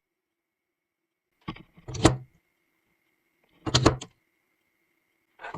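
Bluetti EB70S portable power station being handled: four short clunks and clicks, with a faint steady high whine between them once the unit is on.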